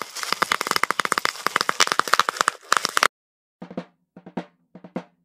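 Bubble wrap pulled through a cardboard machine's rollers, popping in a rapid string of sharp cracks that cuts off suddenly about three seconds in. After a brief silence, a few separate drum hits follow.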